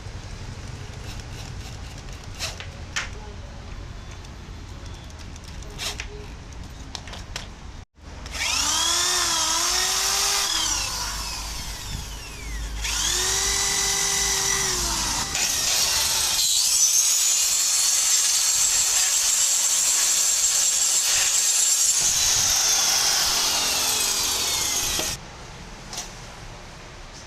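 Electric power tool motor running loud for about 17 seconds, its pitch dipping and recovering at first, then holding a long steady high whine before cutting off abruptly. Before it starts, a low rumble with scattered taps and knocks.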